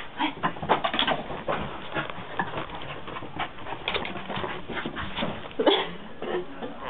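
A dog worrying a slipper on a carpet: irregular scuffling, chewing and snuffling noises, with one louder short sound about five and a half seconds in.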